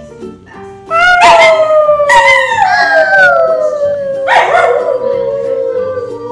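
A dog howling in long, slowly falling howls starting about a second in, with a toddler's voice howling along and overlapping it, and fresh howls entering around two and four seconds in. Background music plays underneath.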